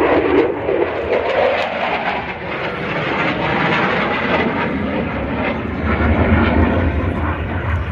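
F-35 fighter jet flying past, a loud, steady jet roar with a pitch-like sweep that falls and rises again in the first couple of seconds, and the low rumble growing heavier about six seconds in.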